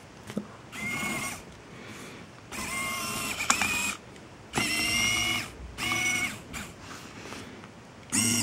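Geared DC motor driving the laser-cut acrylic gears of a turret's tilt mechanism, whining in a series of short bursts as it is switched on and off by hand.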